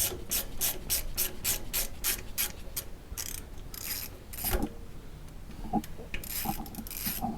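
Hand ratchet clicking as it backs out a loosened T40 Torx starter mounting bolt: a steady run of about three to four clicks a second for the first three seconds, then scattered clicks and a few knocks.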